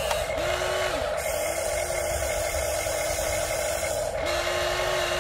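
Electric motors of a Huina 1593 RC excavator whining as the arm and bucket dig, in three separate runs: a short one near the start, a long one of about three seconds, then another near the end. Each run rises to a steady pitch and drops away when the motor stops, over a constant hum.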